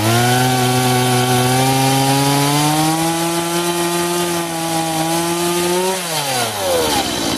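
Stihl MS 170 chainsaw's small two-stroke engine catching on the pull-cord and running at a steady fast idle on its starting setting, its pitch creeping slowly up. About six seconds in, the revs fall away steadily as the choke's fast-idle setting releases toward normal running.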